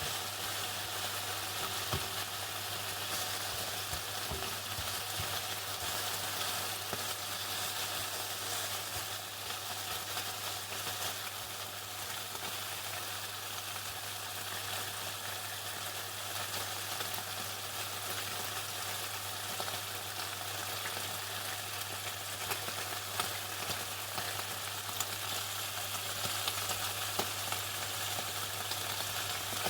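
Chicken deep-frying in hot oil: a dense, steady crackling sizzle like falling rain, over a steady low hum.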